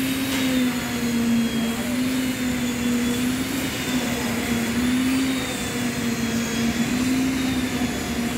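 Machinery on a concrete roof-slab pour running steadily, a loud engine-like hum whose pitch wavers slowly up and down.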